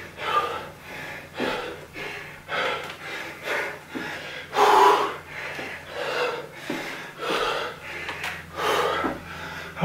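A man breathing hard through a lunge-and-knee-raise exercise: forceful exhalations about once a second, the loudest about five seconds in.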